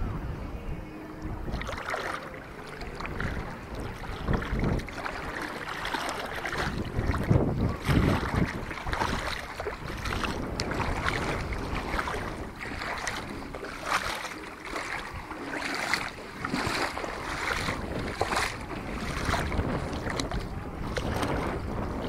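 Splashing footsteps wading through shallow seawater, a regular run of splashes, with wind buffeting the microphone.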